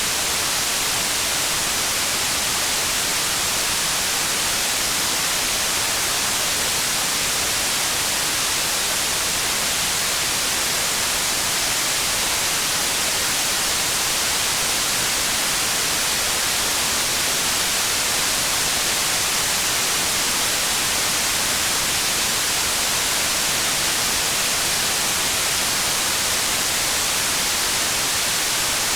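Steady, even hiss of heavy rain, bright and high, with no single drops, thunder or other events standing out.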